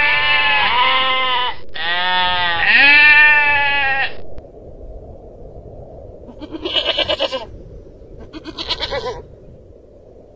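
Long-tailed goral bleating: two long, wavering bleats back to back ending about four seconds in, then two shorter, quavering bleats about two seconds apart.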